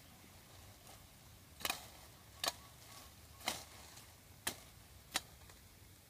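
A knife blade chopping into a thin wooden branch: five sharp strikes about a second apart.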